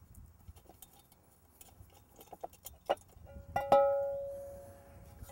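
Light metallic clicks and taps of screws and hardware being worked loose, then a little over halfway through a sharp clank as the stump grinder's metal top guard comes off and strikes the machine. The guard rings with a clear metallic tone that dies away over about a second and a half.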